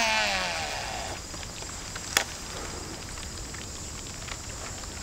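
Baitcasting reel spool whining as line pays out on a cast. The pitch falls steadily as the spool slows, fading out about a second in. A single sharp click comes about two seconds in.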